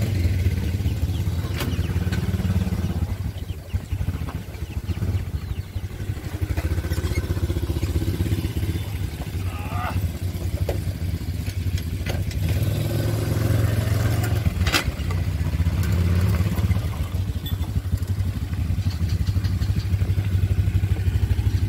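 Quad bike (ATV) engines idling and running steadily, with a few sharp clicks.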